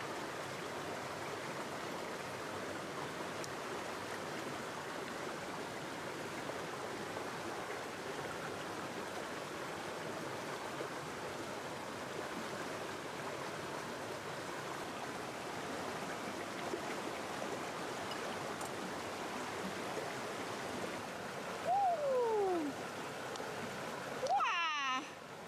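Steady rush of flowing stream water. Near the end a person's voice briefly exclaims twice, with gliding pitch.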